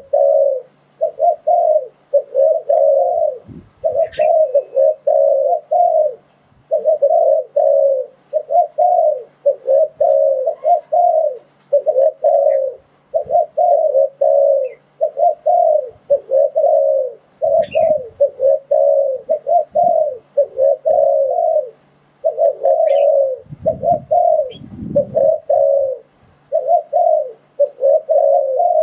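Spotted dove cooing over and over in short repeated phrases with brief gaps. A few low rumbles come through a few seconds in, around the middle and near the end.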